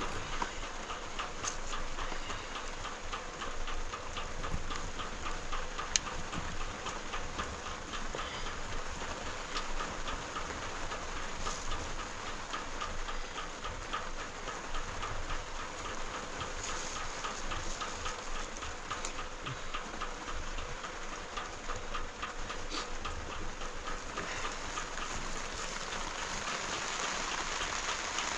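Steady rain noise, with a fast, regular ticking running over it.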